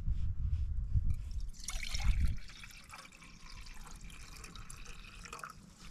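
Water poured from a soft collapsible water bottle into a metal camping pot, a steady trickle starting about a second and a half in. A low rumble comes before it.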